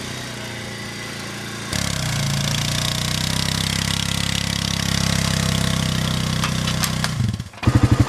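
Quad bike engine running as it drives along towing a low trailer. The sound jumps louder about two seconds in, and just before the end it changes to a fast, even pulsing idle.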